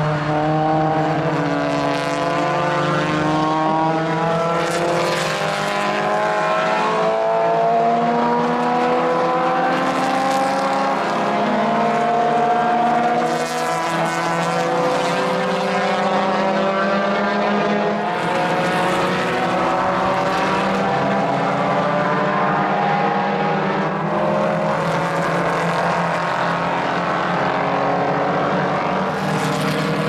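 Historic formula race cars' engines at full throttle as a field of single-seaters accelerates up a hill. Several engine notes overlap, each rising and falling in pitch, with recurring swells of hiss as cars go by.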